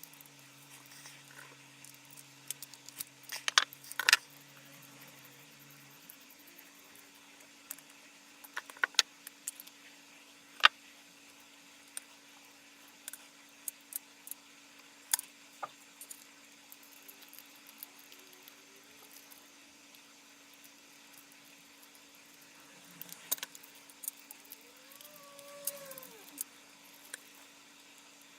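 Scattered clicks and light metallic clinks of small parts being handled, a few seconds apart, over a faint steady hum, with a couple of short squeaks near the end.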